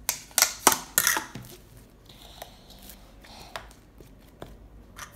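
Thin clear plastic tub and lid being handled, giving several sharp plastic clicks and crackles in the first second and a half, then fainter scattered clicks as slime is pressed into the tub.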